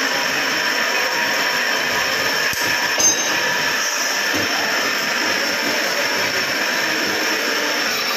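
Double-ended bench grinder running while a steel workpiece is held against its wheel, giving a steady grinding noise, with one brief knock about three seconds in.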